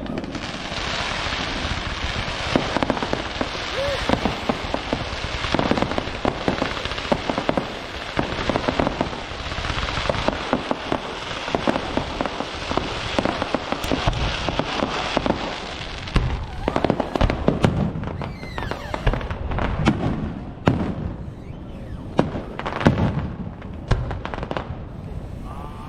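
Fireworks display at close range: a dense, continuous run of bangs and crackling as shells burst in quick succession, with heavy low booms through the second half.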